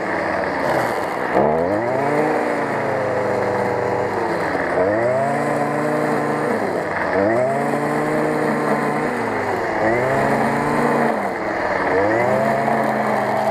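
Stihl FS 55 brush cutter's small two-stroke engine running at high revs as its nylon-line head cuts tall grass. The engine note dips and climbs back up again about every two to three seconds.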